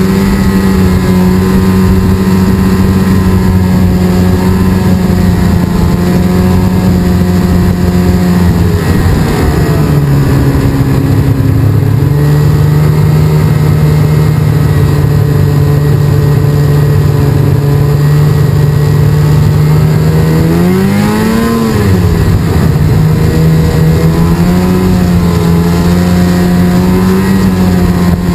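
Snowmobile engine running steadily at trail speed. Its pitch drops a little about a third of the way through, then rises and falls in a quick rev about two-thirds of the way through.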